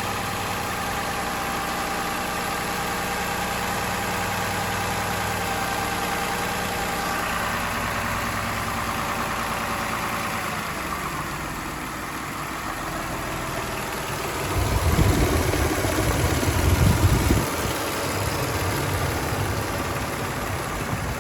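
Toyota 3MZ-FE V6 engine running steadily at idle with a rattling knock, which the owner wonders may be an exhaust leak. From about 14 to 18 seconds in, loud low rumbling bursts rise over it.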